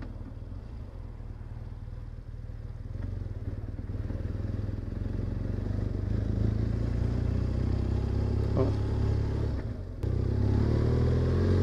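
Motorcycle engine running at low road speed, heard from on the bike. It is quiet at first, builds steadily from a few seconds in, dips briefly about ten seconds in, then picks up again.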